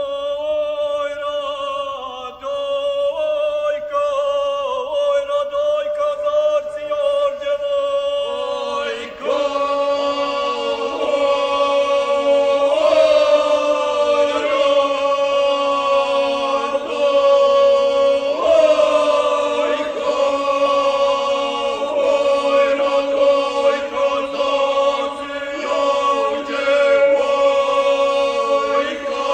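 Traditional Herzegovinian folk song sung a cappella by a small vocal group, with long held notes in close parts. The singing grows fuller about nine seconds in.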